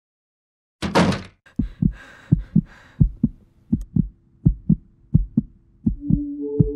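Heartbeat sound effect in a film soundtrack: pairs of low thumps, lub-dub, repeating steadily about every 0.7 seconds, after a short noisy swell about a second in. A low held drone joins the beat near the end.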